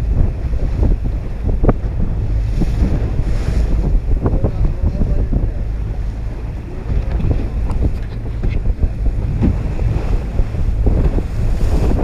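Wind buffeting the microphone and water slapping and splashing against the hull of a sport-fishing boat trolling slowly through choppy seas, in short irregular splashes over a constant low rumble.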